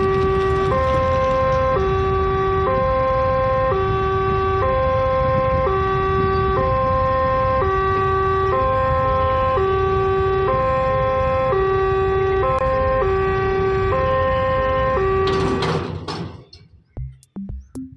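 Level-crossing warning hooter sounding a two-tone wail, alternating between a low and a higher note about once a second, warning that the crossing gate is closing. It cuts off about fifteen seconds in with a brief noisy rush, and sharp electronic beats start near the end.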